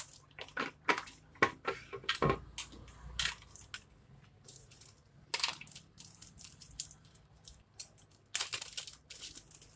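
Hard plastic clicks and knocks as a hand pressure sprayer's pump head is unscrewed from its bottle and set down, then the crinkle of a small plastic bag being opened near the end.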